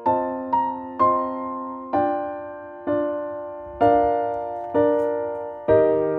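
Background music: a soft piano playing slow chords, struck about once a second, each left to ring and fade before the next.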